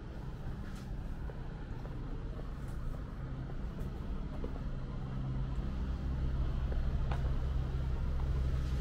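City street ambience with a motor vehicle's engine running close by, a steady low hum that grows louder in the second half, with a few faint clicks.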